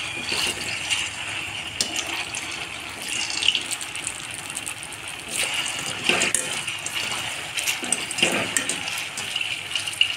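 Dough pieces sizzling and bubbling as they deep-fry in hot refined oil in a karahi: a steady crackling hiss, with a few louder crackles as more pieces are slid into the oil.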